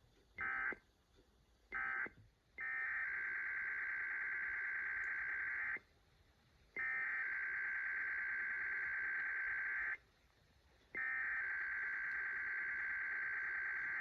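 Emergency Alert System SAME data bursts, a buzzing two-tone digital warble. Two short bursts finish the end-of-message code of an alert. Then come three long bursts of about three seconds each, a second apart, which are the coded header of a new alert.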